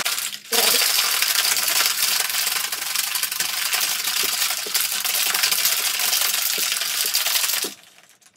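Ice rattling hard in a stainless steel cobbler cocktail shaker shaken vigorously to chill an espresso martini. It starts about half a second in and stops shortly before the end.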